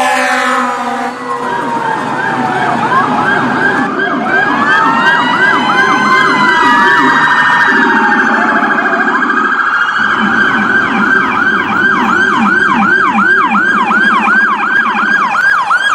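Electronic emergency siren sounding in a rapid rising-and-falling yelp, about two to three sweeps a second, with slower wide sweeps around the middle. A second, lower siren tone runs underneath.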